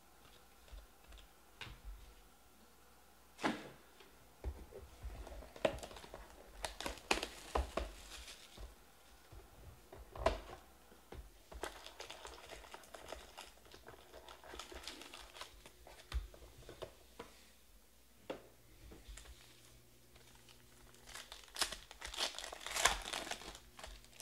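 Hands opening a box of baseball trading cards and a card pack: plastic wrapper crinkling and tearing, with cardboard and card-handling rustles. The crinkling comes in two bunches, one several seconds in and a louder one near the end.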